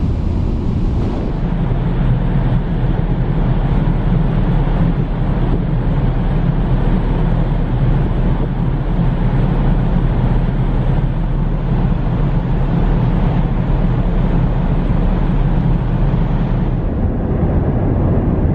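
Steady low drone of ship engines over a rushing of wind and churned water; the drone sets in about a second in and drops away near the end.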